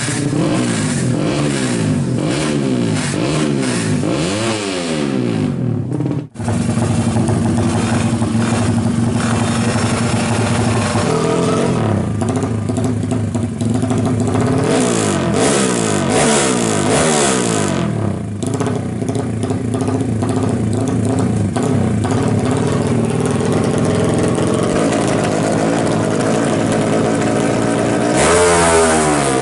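200cc Honda drag bike's single-cylinder four-stroke engine through an open racing exhaust, revved up and down over and over in quick throttle blips, with a brief break about six seconds in. Near the end it revs hard and its pitch climbs steeply as the bike launches.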